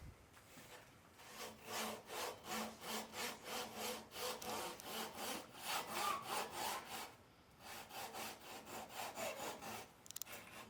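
Hand saw cutting through wood in quick back-and-forth strokes, about three a second, with a short pause about two-thirds of the way through before sawing resumes.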